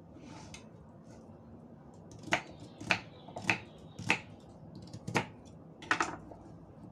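Kitchen knife chopping pumpkin into cubes on a wooden cutting board: six sharp knocks of the blade striking the board, starting about two seconds in and coming roughly every half second, with a short pause before the last two.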